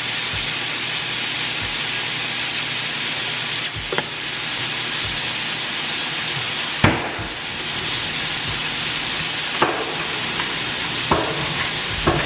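Food frying in a pot with a steady sizzle, with a few sharp clicks and knocks scattered through it, the loudest about seven seconds in.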